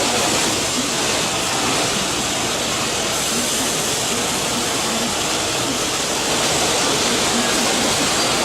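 Four-axis CNC machining center running, a steady rushing noise with no breaks.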